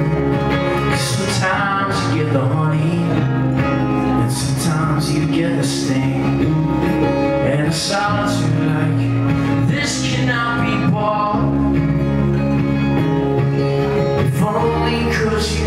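A song played live: a man singing over a strummed acoustic guitar.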